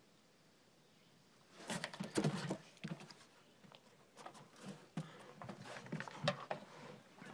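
German Shorthaired Pointer pawing and snapping at the water from a wooden dock: after a quiet start, an irregular run of taps, claw clicks and small splashes, loudest about two seconds in.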